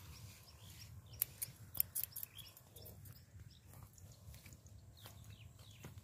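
Quiet outdoor ambience: a low steady rumble with a few light clicks about one to two seconds in and faint short bird chirps.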